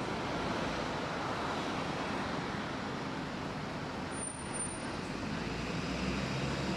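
Steady city street ambience: the continuous hum of road traffic.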